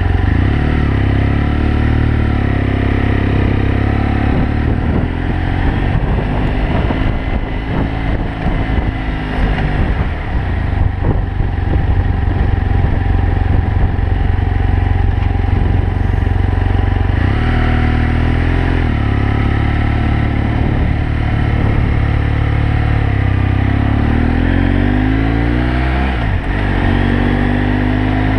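BMW F800GS Adventure's parallel-twin engine running under way. The engine note rises and falls with the throttle and gear changes, climbing again near the end.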